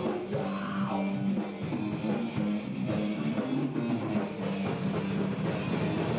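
Rock band playing a song together: drum kit, electric guitars and bass, a run-through for setting the headphone mixes.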